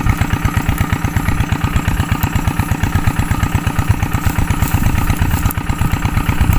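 A small engine running steadily at idle, with an even, rapid pulse.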